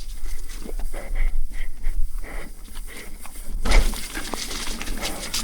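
Mountain bike rattling and knocking over a rough, wet trail, with a heavy thud about three and a half seconds in as it lands a small drop, then a hiss of tyres on the wet ground.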